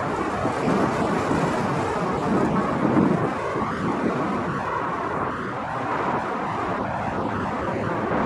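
Freight train of autorack cars rolling past, a steady rumble of wheels on the rails.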